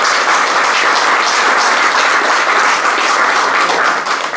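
Guests applauding, a dense run of many hands clapping that dies away near the end.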